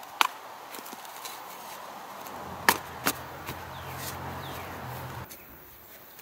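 A round-point shovel stabbed into lawn turf and soil: a few sharp chopping strikes, the two loudest about half a second apart near the middle.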